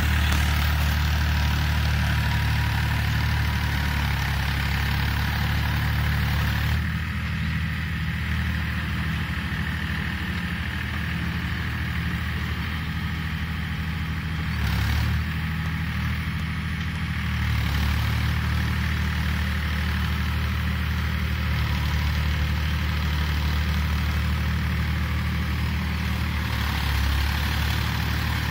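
Diesel tractor engine running steadily as it drives a rotavator through the field, a low, even drone. The level drops a little about seven seconds in and comes back up a few seconds before the end of the middle stretch, near eighteen seconds.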